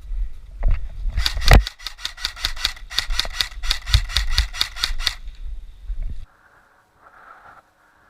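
Airsoft gun fired in quick succession: a string of sharp clicks, about five a second, lasting about four seconds, over low wind rumble on the microphone. The sound cuts off abruptly about six seconds in.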